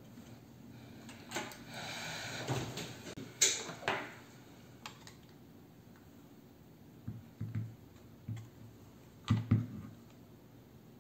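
Plastic clicks, knocks and rustling as a Fakir hand blender's housing and cord are handled and fitted back together, with two sharp clicks about three and a half seconds in and a pair of louder knocks near the end.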